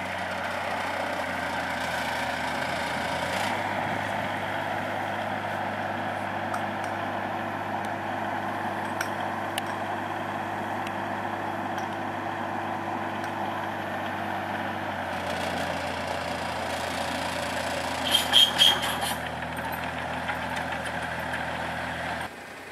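Diesel engines of heavy construction equipment, a directional drill and a mini excavator, running steadily, the engine note shifting a few times. A short run of sharp, high clicks comes near the end.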